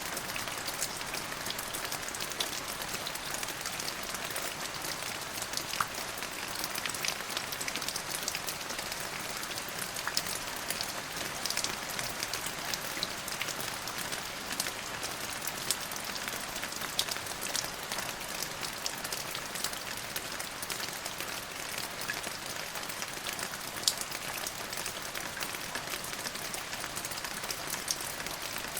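Steady rain falling, a dense hiss with many small drop ticks landing on a hard surface.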